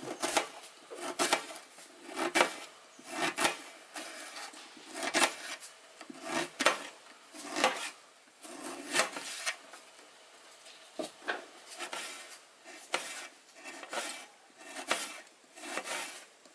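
Kitchen knife chopping a red onion on a metal tray: a sharp cut-and-knock roughly once a second, with the blade scraping through the onion layers between strokes.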